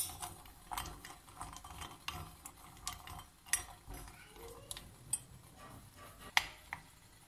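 A spoon stirring chunks of white chocolate in a glass bowl over hot water, clicking and scraping against the glass in irregular light taps, the loudest at the very start and about six and a half seconds in.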